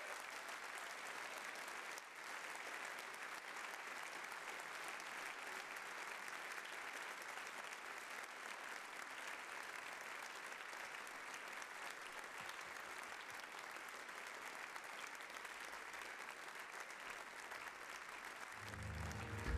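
A large theatre audience applauding steadily, a dense, even clatter of many hands clapping. Music comes in just before the end.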